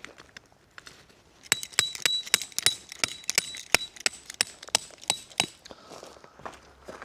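A rapid run of sharp clinks, hard objects knocking together with a brief ringing tone, starting about a second and a half in and stopping about four seconds later.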